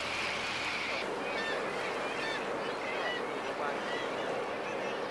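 Seabirds calling at a breeding colony: many short, high, bending calls over a steady wash of wind and sea. A steady motor hum stops abruptly about a second in, where the calls begin.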